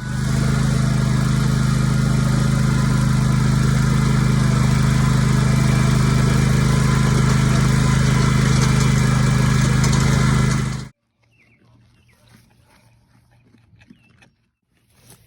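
An engine running steadily at a constant speed, then stopping abruptly about eleven seconds in, leaving only faint outdoor sounds.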